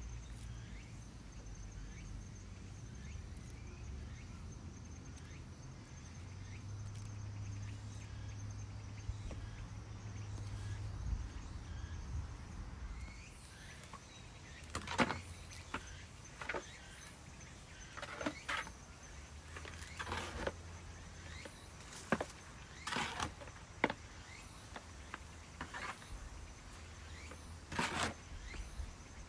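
Empty plastic flower pots knocking and clacking as they are lifted and stacked into one another: about a dozen short, irregular knocks in the second half, over a faint low rumble.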